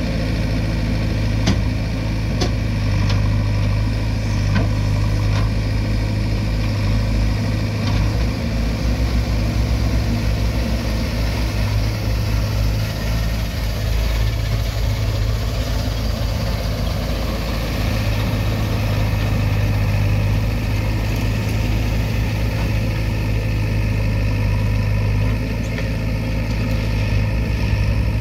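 Heavy diesel engine running steadily with a deep hum, with a few sharp clicks near the start.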